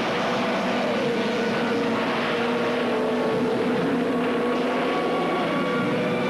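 Steady electrical hum and buzz of laboratory machinery, with tones that waver slowly up and down.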